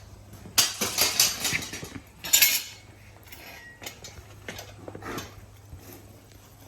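Metal clanking and clinking: a loud clatter of several hits about half a second in, a second loud clatter a little after two seconds, then a few lighter taps.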